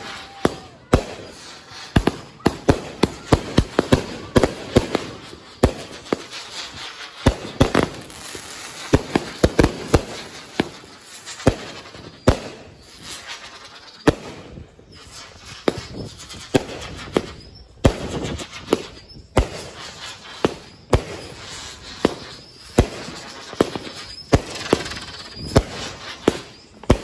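Consumer fireworks going off: a rapid, irregular series of sharp bangs and crackling aerial bursts, coming in dense clusters with short lulls between.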